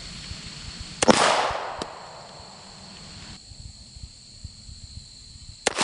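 Two pistol shots from a Smith & Wesson Model 52-2 semi-automatic target pistol firing .38 Special wadcutter loads, about four and a half seconds apart: the first about a second in, the second near the end, each with a short echo.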